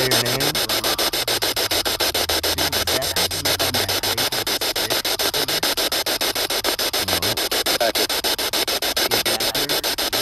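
Ghost box (spirit box) radio sweep: hissing static chopped by rapid, evenly spaced clicks several times a second as it scans through stations, with brief snatches of broadcast voice breaking through.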